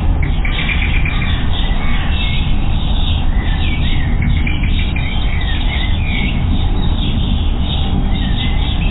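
Small songbirds chirping and calling: many short chirps, a quick trill near the start, and sliding calls, over a steady low rumble.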